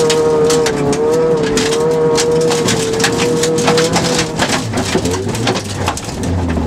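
Rally car engine heard from inside the cabin, held at high revs as a steady high-pitched drone, with gravel and stones clattering against the underbody. About four and a half seconds in, the high note drops away to a low engine rumble as the car slows for a corner.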